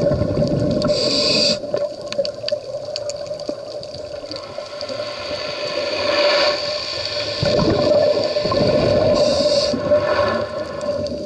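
Scuba diver breathing underwater through a regulator: short hissing inhales and the bubbling rumble of exhaled air, with the exhale bubbles at the start and again for a couple of seconds past the middle. A steady hum runs underneath.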